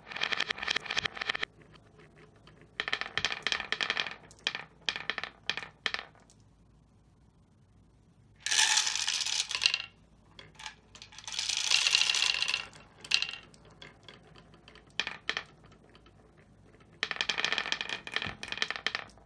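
Glass marbles rolling and clattering down a wooden marble run: bursts of rapid clicks as they drop through the track pieces, with two louder rolling rushes about halfway through and another clatter near the end.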